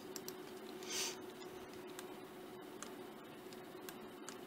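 Faint room tone with a steady low hum, with a few light computer-mouse clicks and a soft hiss about a second in.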